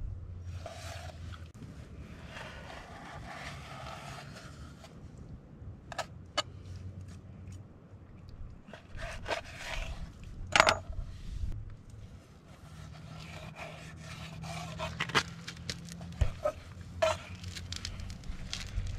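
Kitchen knife scraping and slicing through raw fish fillets on a plastic cutting board, with a few sharp taps of the blade against the board.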